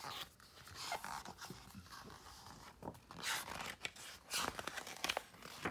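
Pages of a hardcover picture book being handled and turned: paper rustling and scraping in several short bursts, the loudest about three and four and a half seconds in.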